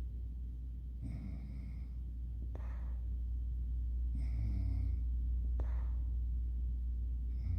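Snoring: slow sleep breathing, about one cycle every three seconds, alternating a high whistling breath with a puffing breath that ends in a small click. A steady low hum runs underneath.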